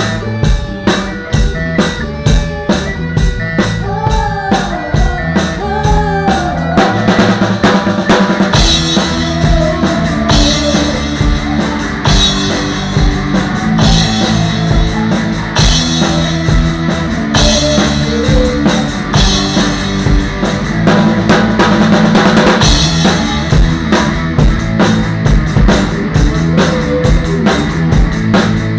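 Drum kit played live with a band: steady, regular drum hits at first, then about seven seconds in the cymbals come in and the band plays fuller and denser.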